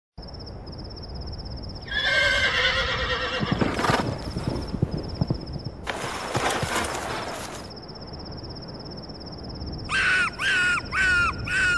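A horse whinnying, followed by hooves clattering, over a steady pulsing insect trill. Near the end come four short calls in a row.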